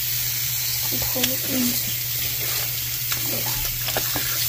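Tap water running steadily into a sink, pouring onto a wet cloth and splashing on the basin.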